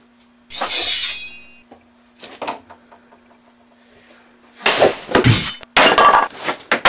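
Wooden boards and sticks being handled on a workbench: a scraping slide about half a second in, a short knock, then loud clattering and knocking of wood from about four and a half seconds in.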